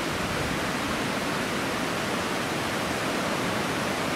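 Mountain river rushing over a rocky bed: a steady, even wash of water noise.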